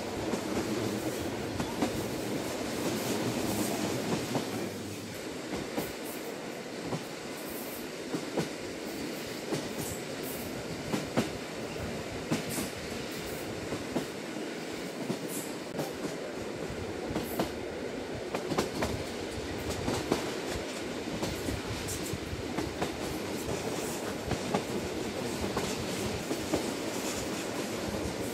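A JR Hokkaido Lilac limited express train running at speed, heard from inside the carriage: a steady rumble with sharp clicks from the wheels every second or two.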